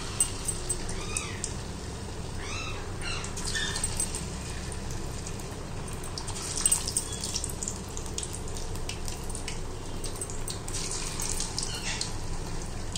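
Chhena balls deep-frying in a kadai of hot oil: steady sizzling with scattered small pops. A cat meows a few times in the first few seconds.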